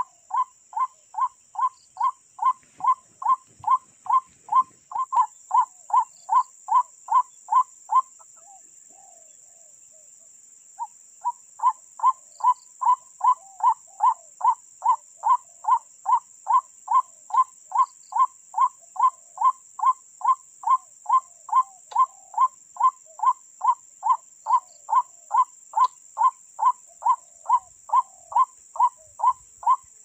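White-breasted waterhen 'kwak' call repeated with machine-like evenness, about three notes a second, the recorded lure call played to draw waterhens to the snares. It breaks off about eight seconds in and starts again about three seconds later.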